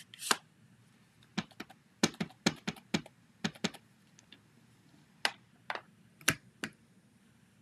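A series of irregular, sharp clicks and taps, some in quick clusters of two or three, with short gaps between.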